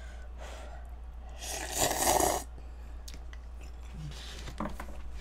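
Instant cup noodles being slurped off chopsticks in one loud slurp lasting about a second, starting about a second and a half in. A few faint clicks follow.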